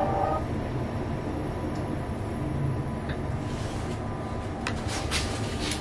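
Steady low hum inside a panoramic glass lift cabin, with a few sharp clicks and a short rustle in the second half. Background music ends about half a second in.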